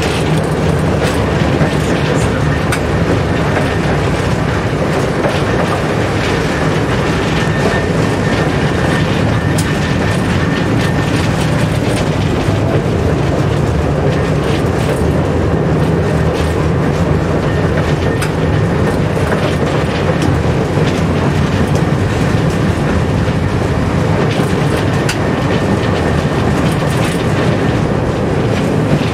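Tram running along the track, heard from the driver's cab: a steady rumble of wheels on rail with frequent clicks and knocks as the wheels pass over rail joints.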